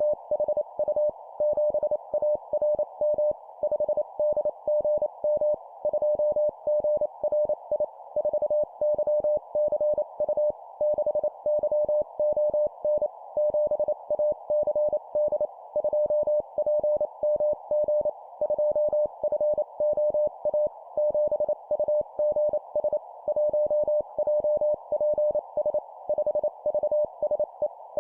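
Morse code (CW) practice tone: a single steady beep keyed in rapid dots and dashes at 25 words per minute, sending four-character groups of a number followed by three letters, with a faint hiss in the gaps between characters.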